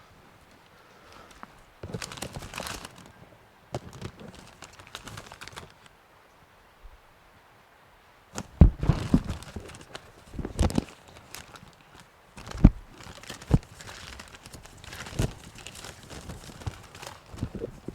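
Hands handling small parts and tools on a workbench: irregular clicks, knocks and short rustles, with a cluster of sharper knocks about halfway through.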